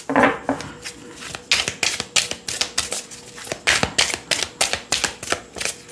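A deck of tarot-style cards being shuffled by hand, making a quick, irregular run of card clicks and flicks.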